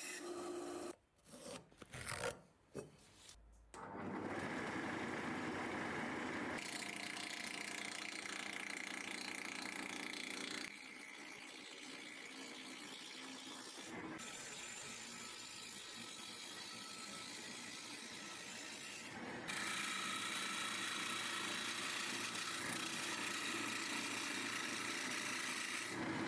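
A band saw cutting a wooden blank for a handle, then a wood lathe spinning the blank while a hand-held turning tool shaves it with a steady, even noise. A few short, broken sounds come in the first seconds, and the noise changes character several times.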